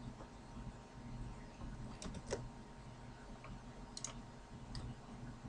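Scattered clicks from a desktop computer's controls: three quick ones about two seconds in, two about four seconds in and one more shortly after, over a low steady hum.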